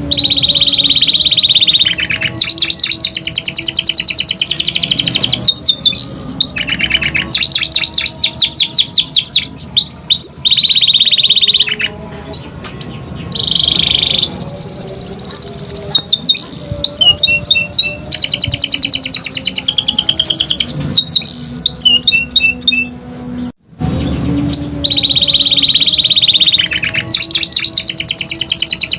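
Canary singing: long, fast trills and rolls, with runs of quick repeated notes and short pauses between phrases.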